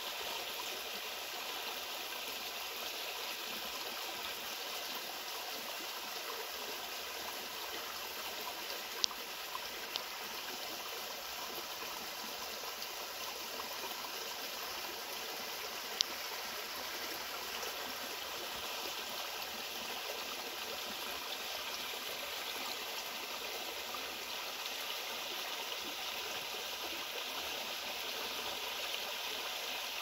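Small woodland stream running steadily over stones and a low rock cascade. Two short sharp clicks stand out, about nine and sixteen seconds in.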